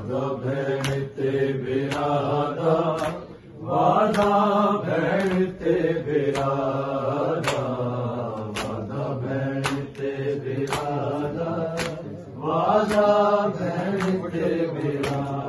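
A group of men chanting a Punjabi noha (Muharram mourning lament) in unison, with sharp hand strikes keeping time about once a second: matam, the rhythmic chest-beating of mourning. The chant swells louder about four seconds in and again near the end.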